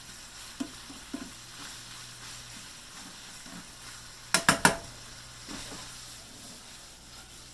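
Bacon sizzling steadily in a frying pan, with a few light clicks and a quick clatter of a utensil against the pan about halfway through.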